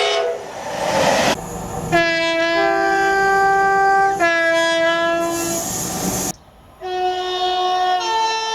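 Two-tone train air horns sounding in several blasts, each stepping from a lower note up to a higher one. A stretch of rushing train noise comes before them, and the blasts are joined by abrupt cuts, one of them to a brief near silence.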